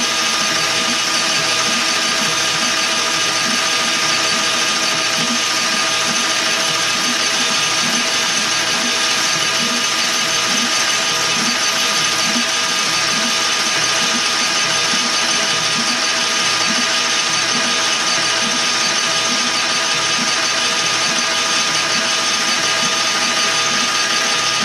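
Metal lathe running steadily while its cutting tool takes a turning cut along a metal tube: an even machine hum with several steady tones from the drive, over the hiss of the cut.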